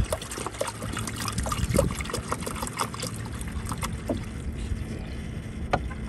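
Water trickling, with scattered light clicks over a low, steady rumble.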